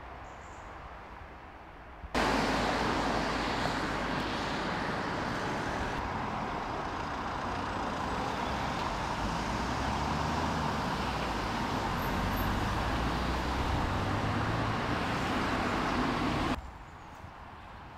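Road traffic: cars passing on a main road, a steady wash of tyre and engine noise. It starts abruptly about two seconds in and stops abruptly near the end.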